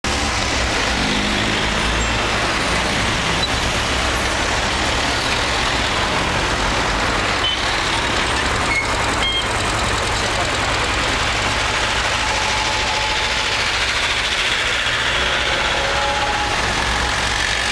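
Street traffic: a steady wash of cars and engines passing on a multi-lane road, with a few brief high beeps about eight to nine seconds in.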